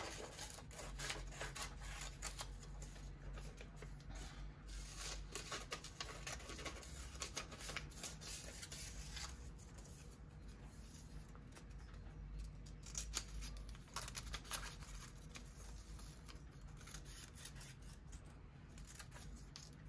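Scissors cutting paper in many short, irregular snips.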